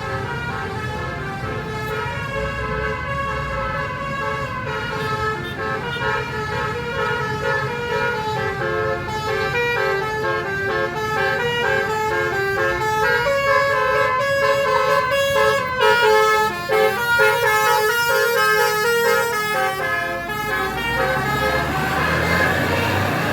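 Bus telolet horn, a Basuri multi-trumpet air horn, playing a long melody of quick stepping notes, with a low engine rumble beneath.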